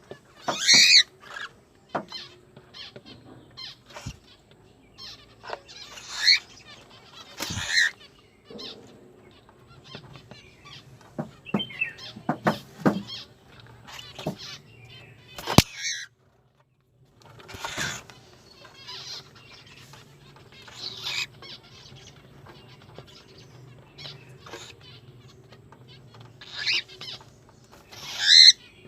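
Pet cockatiel calling with scattered short, shrill chirps and screeches, the loudest about a second in and near the end, with small clicks and taps between the calls.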